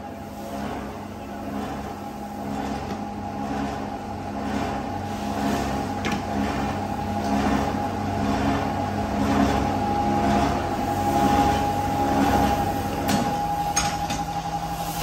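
Plastic extrusion machine running: a steady mechanical hum and rumble from its motor and drive, with a couple of faint clicks near the end.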